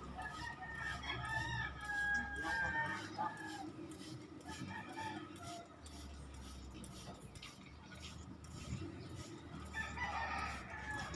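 Cockatiels chirping and calling in clusters of short, wavering notes, busiest over the first few seconds and again near the end.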